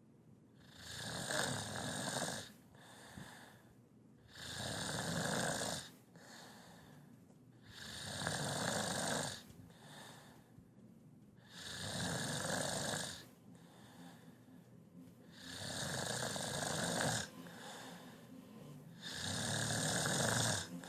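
A person snoring heavily: six loud snores, one about every three and a half to four seconds, with softer breathing between them.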